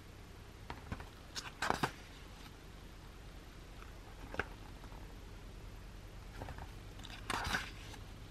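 Pages of a glossy album photobook being turned by hand: several brief paper swishes and rustles, the loudest about two seconds in and near the end, over a low steady hum.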